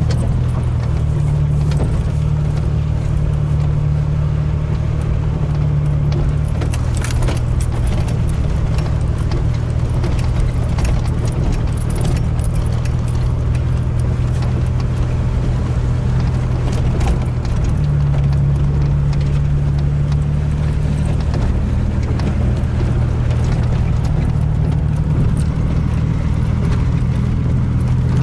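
Chevrolet S-10 Blazer's engine running steadily, heard inside the cab while it drives a rutted dirt trail, its pitch shifting slightly a couple of times. Scattered clicks and rattles from the truck's body and interior over the bumps.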